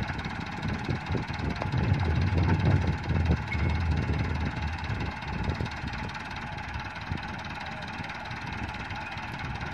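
Massey Ferguson tractor's diesel engine idling with a steady low rumble, a little louder in the first half.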